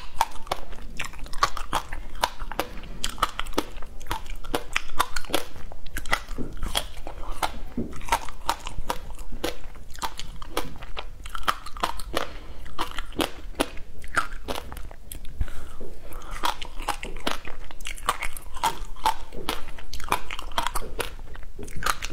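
Teeth biting and chewing through a frozen block of passion fruit ice: a dense run of sharp, crackly crunches with short gaps between bites.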